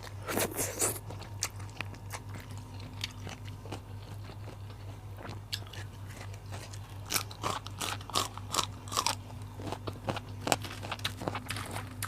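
Close-up crunching and chewing of raw vegetables, with clusters of sharp crunchy bites near the start and again about seven to nine seconds in.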